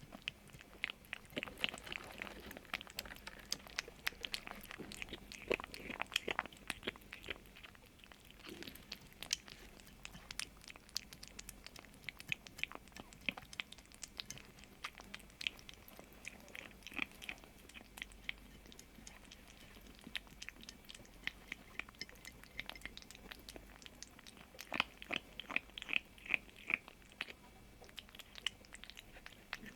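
A kitten chewing food, heard as a long, irregular run of small sharp clicks.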